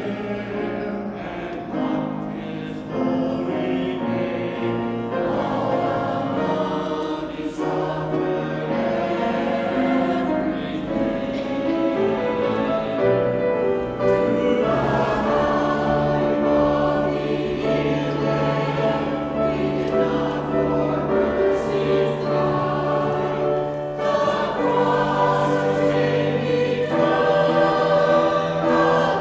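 Small mixed church choir of men's and women's voices singing in parts, with sustained held notes.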